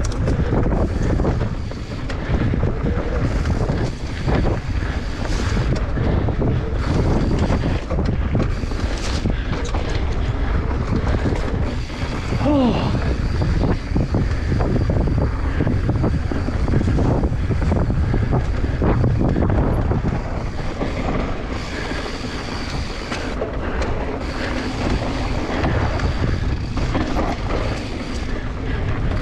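Mountain bike descending a dry, dusty dirt trail at speed: wind buffeting the camera microphone over the steady rumble of the tyres on loose dirt, with frequent small knocks and rattles from the bike.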